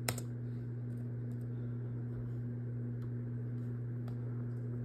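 A steady low hum, with a few faint scattered clicks.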